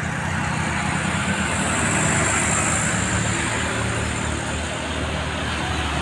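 Heavy goods truck's engine pulling uphill, a steady low rumble with road noise as the truck approaches.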